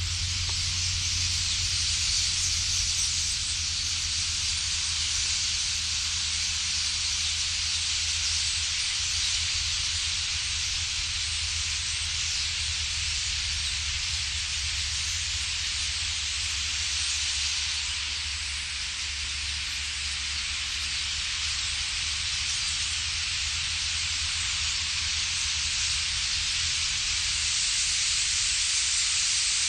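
Steady, even hiss of a vast flock of common starlings, thousands of calls merged into one continuous noise, with a low rumble underneath.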